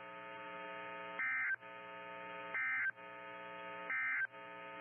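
NOAA Weather Radio's SAME digital data tones: three short warbling bursts about 1.4 s apart, the End of Message code that closes a warning broadcast. Between the bursts the channel carries a steady buzzing hum.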